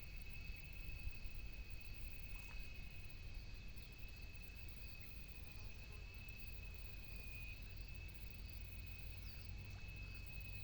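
Steady high-pitched insect trill, unbroken throughout, over a low rumble.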